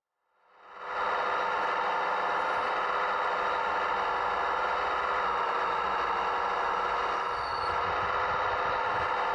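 Radio-controlled Case CX85RR rail-road excavator model running steadily, a constant mechanical hum and whine heard close up from on the machine. It fades in from silence over the first second.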